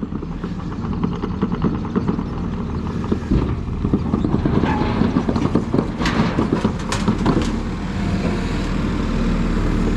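A skid loader's diesel engine running steadily as the machine is driven up to be loaded onto a trailer, with a few sharp metal clanks about six to seven seconds in.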